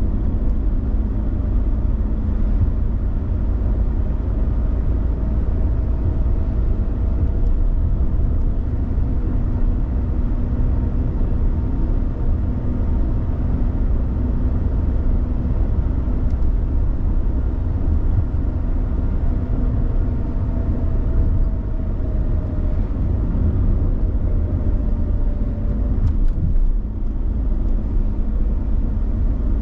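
Suzuki Lapin driving at speed: a steady low road and tyre rumble, with a faint tone that slowly rises and falls in pitch twice.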